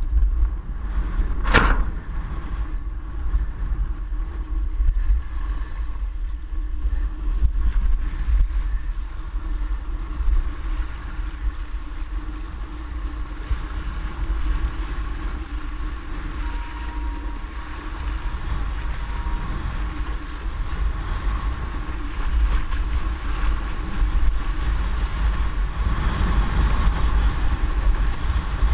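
Steady, heavy wind buffeting on a boom-mounted camera's microphone, mixed with the rush of water under a windsurf board planing along. A single sharp click about a second and a half in.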